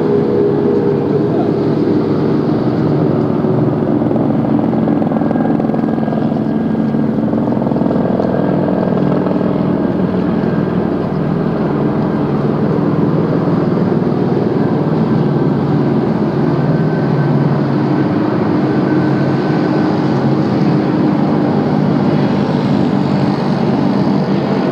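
Boat engines running with a steady drone, several tones drifting slowly up and down in pitch over a rushing noise.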